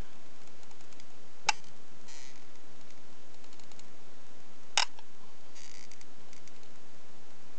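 Two sharp clicks about three seconds apart, with a few faint ticks between, over a steady hiss: a plastic-handled applicator knocking against the relay socket block as grease is dabbed into the sockets.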